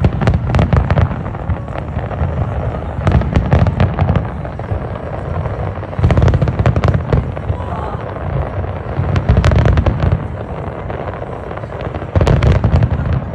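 Fireworks going off overhead in volleys of deep booms and sharp crackles, a new cluster about every three seconds.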